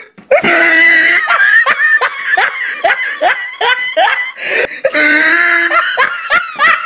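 Loud laughter in a quick string of short 'ha-ha' bursts, with a few longer held notes.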